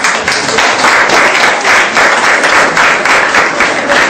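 Audience applauding loudly, many hands clapping together.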